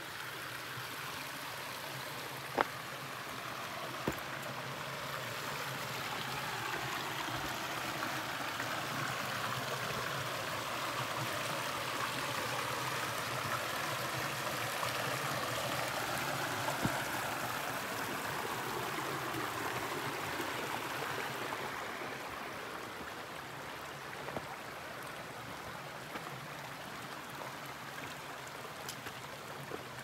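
Mountain stream flowing: a steady rush of water that grows louder about a third of the way in and eases off again after about two-thirds, with a few faint clicks.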